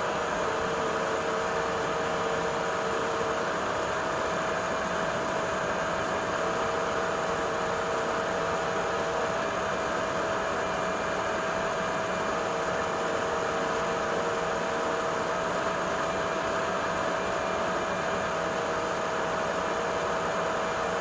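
Shunzao Z11 cordless stick vacuum running steadily: a rushing airflow hiss with a steady motor whine, and a fainter lower tone that comes and goes every few seconds.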